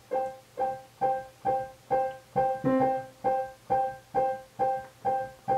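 Piano playing a song's introduction: the same chord struck evenly a little over twice a second, each one dying away before the next, with a lower bass note added once or twice.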